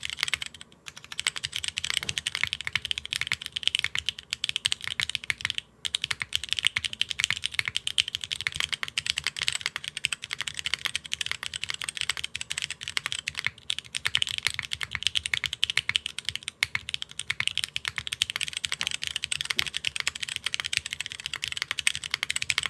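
Fast, continuous typing on Neo65 mechanical keyboards with tactile switches: a sound test pitting HMX Light Tactile prototype switches against Cherry MX Browns. A dense stream of key clacks with a deeper thock underneath, broken by short pauses about half a second in and near six seconds in.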